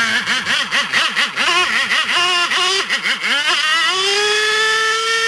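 IR 40 racing two-stroke glow engine of an F3D pylon racer running on the ground with the model held nose-up, its pitch swinging rapidly up and down several times before climbing to a steady high-pitched whine about four seconds in.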